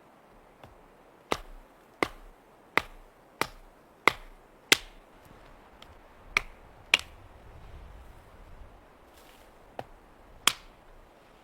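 About ten sharp chopping strikes on wood. They come evenly, roughly every 0.7 s, for the first few seconds, then with longer gaps.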